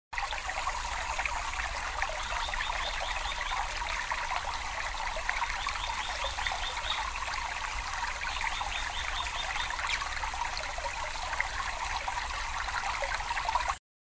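Small tabletop aquarium waterfall trickling steadily over moss-covered stones into the water, with small splashy clicks and a low steady hum underneath. It cuts off suddenly near the end.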